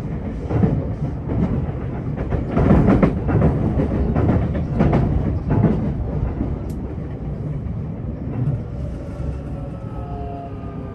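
Electric commuter train running on the JR Osaka Loop Line: a steady rumble of wheels on rail with irregular clattering knocks. From about nine seconds in, a motor whine with several tones joins it, falling slowly in pitch as the train slows.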